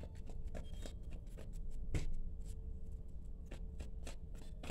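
A tarot deck being shuffled by hand: a quick, irregular run of card clicks and flicks.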